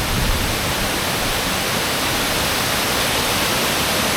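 Waterfall's steady rush of falling water, an even, loud hiss with no change.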